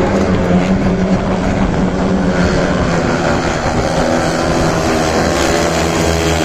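Speedway motorcycles' 500 cc single-cylinder methanol engines racing on the dirt track, their pitch rising and falling as the riders throttle through the bend. They get louder and sharper from about two and a half seconds in, as the pack comes past.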